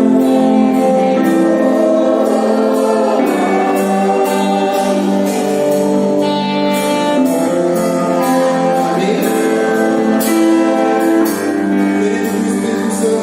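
Christian worship music: sung voices over held instrumental chords, with a regular beat of cymbal-like strikes about twice a second.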